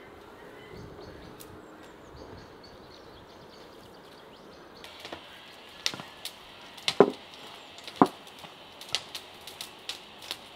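A metal spoon clinking and scraping against a stainless steel bowl as ground walnuts and squeezed grated pulp are mixed. There are a few sharp clinks from about halfway through, the loudest two about a second apart.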